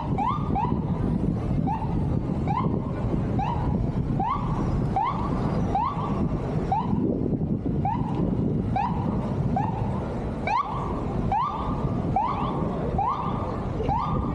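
Emergency vehicle siren sounding in a rapid repeating whoop, each short tone sweeping upward, about one and a half per second, over steady traffic and crowd noise.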